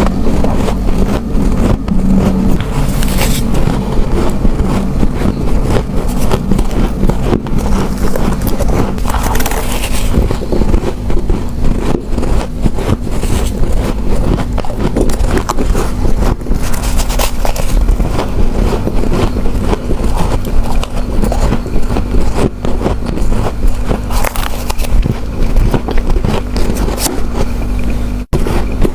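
Close-miked crunching and chewing of spoonfuls of soft freezer frost: a continuous dense crackle of packed ice crystals being bitten and crushed between the teeth.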